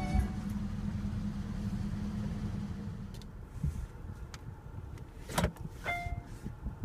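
Sounds inside a car: a low rumble that fades about three seconds in, a few light clicks, a sharp knock, and then a short electronic chime from the car just before the end.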